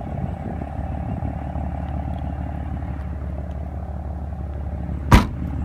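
Steady low hum of an idling engine, with one sharp click about five seconds in.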